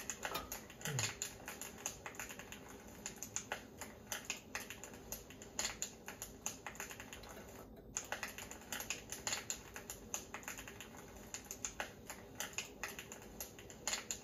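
Wood fire crackling with irregular sharp pops over a faint steady hum. The sound cuts out for a moment about eight seconds in.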